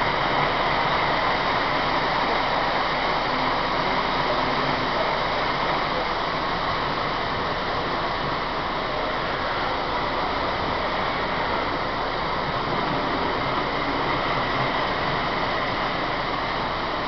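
Model trains running on the display layout's track: a steady, even rumbling whir that does not let up.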